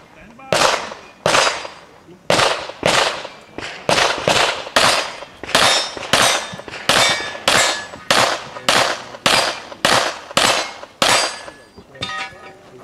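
Pistol shots fired in a long string during an IPSC practical shooting stage. They come roughly half a second to a second apart, each a sharp crack with a short ringing tail, and they stop about 11 seconds in.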